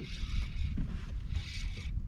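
Wind buffeting the microphone as a steady low rumble, with a short hiss that comes twice, about a second and a half apart.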